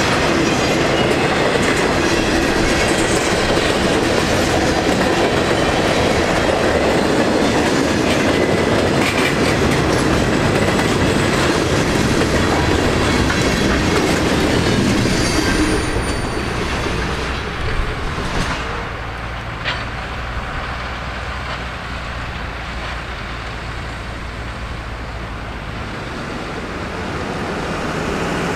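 Union Pacific freight train of flatcars rolling past close by, its wheels clicking over the rail joints. The noise drops off about halfway through as the last car goes by. After that a steady low engine rumble remains, with a couple of sharp knocks.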